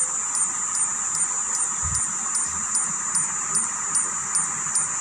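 LG CRT TV's high-voltage (EHT) section running with a steady high-pitched whine and hiss, with faint ticks repeating about three times a second: the EHT sound fault that leaves the set with no picture.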